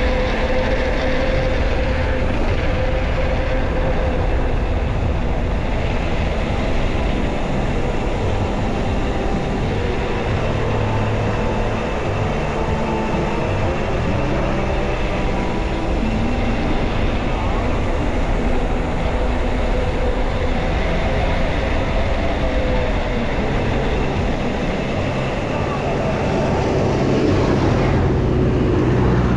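Steady, loud rumble of riding on a road: wind and road noise on the microphone, with a low hum that drifts slowly in pitch.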